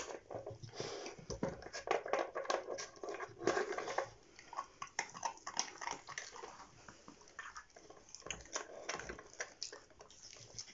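A puppy working a plastic dog puzzle toy for treats: its nose and paws knock and shift the plastic pieces in irregular clicks and clatter, with biting and chewing sounds mixed in.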